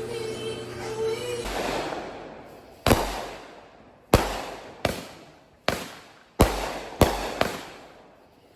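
Fireworks exploding: after a short crackling rush, seven sharp bangs about half a second to a second apart, starting about three seconds in, each dying away in an echo. Music plays briefly at the start and cuts off.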